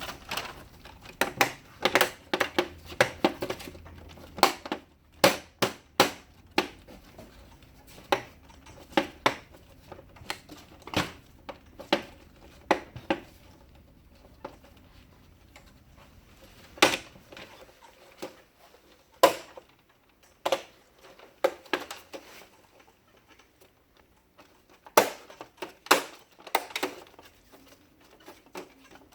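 Plastic printer covers of an HP LaserJet clicking and knocking as they are handled and snapped back into place. The sharp clicks come irregularly, in clusters, with quieter gaps between them.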